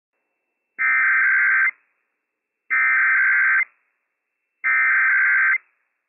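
Emergency Alert System SAME header: three identical bursts of rapid, buzzy digital data tones, each just under a second long and about a second apart, sent by NOAA Weather Radio to encode a Required Weekly Test.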